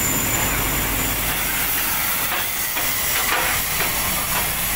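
Steam locomotive hissing steam, a steady noisy rush with a strong high hiss.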